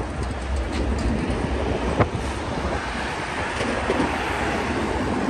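Busy city street ambience: a steady low rumble under a wash of street noise, with one sharp click about two seconds in.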